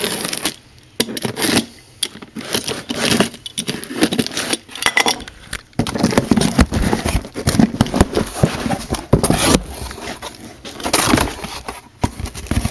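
Cardboard shipping box being opened by hand: tape tearing and cardboard and paper rustling and scraping in irregular bursts with short pauses.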